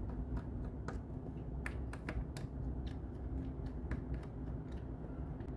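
Irregular small sharp clicks and taps of a Redmi 9T's plastic back cover and frame being handled and worked apart by hand, over a low steady hum.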